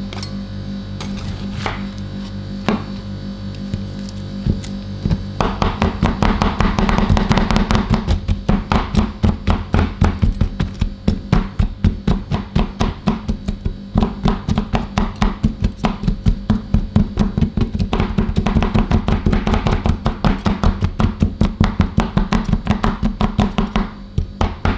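Metal spatulas chopping on an ice cream roll cold plate, over the plate's steady low hum. A few scattered taps come first, then about five seconds in a fast, regular run of chopping strikes starts, several a second.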